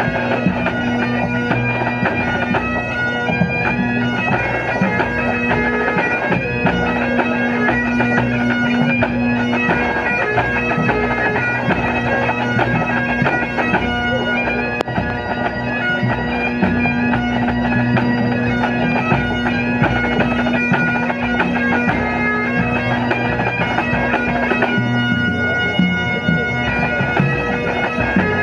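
Full pipe band playing a medley: Great Highland bagpipes sound a steady drone under the chanter melody, backed by snare, tenor and bass drums.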